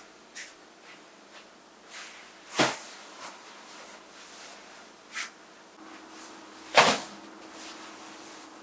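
Back cushions of a leather sofa being set in place and pressed down by hand: two soft thumps about four seconds apart, with lighter taps between them.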